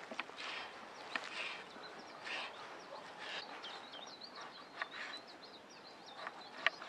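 Chopped fresh nettle leaves rustling and scraping off a wooden cutting board into a metal pot, in repeated short bursts with a few sharp clicks. A small bird sings a wavering, high-pitched song in the background from about two and a half seconds in until near the end.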